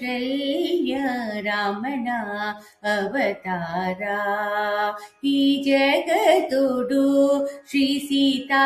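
A woman singing solo and unaccompanied, holding long notes with gliding ornaments, in phrases of two to three seconds with short breaks for breath between them.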